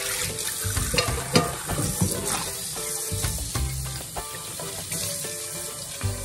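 Running water from a kitchen faucet spraying onto a nonstick frying pan as it is rinsed in a stainless steel sink, a steady hiss with a few sharp knocks. Background music with a pulsing bass plays along with it.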